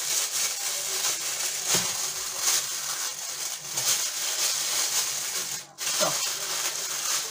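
Plastic roasting bag crinkling and rustling with many sharp crackles as a stuffed duck is pushed into it and handled. It stops briefly near the end.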